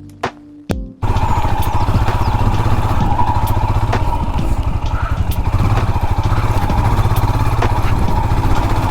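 Music cuts off about a second in. A Royal Enfield Himalayan's single-cylinder engine then runs steadily, loud and close, with a rapid even low thudding.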